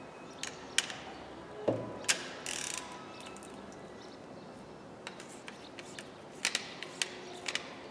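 Torque wrench ratchet clicking as the injector hold-down bolts are tightened to 10 newton-metres: a few single sharp clicks in the first couple of seconds, then a quicker run of clicks from about five seconds in. There is also a dull knock just before two seconds.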